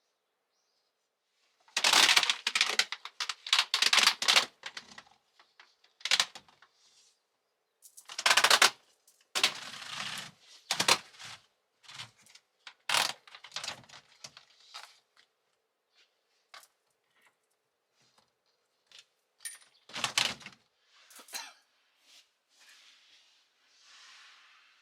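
Irregular clicks, clatters and rustles of things being handled, in clusters that are loudest about two seconds in, around eight to eleven seconds in, and again around twenty seconds in, with a soft hiss near the end.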